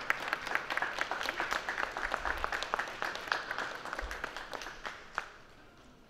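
Audience applauding at the end of a vaulting routine. The clapping dies away about five seconds in.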